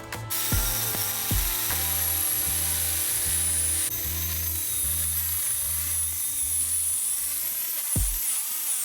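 A power tool grinding steel makes a steady high hiss with a wavering high whine. It starts abruptly just after the beginning, over background music with a steady bass beat.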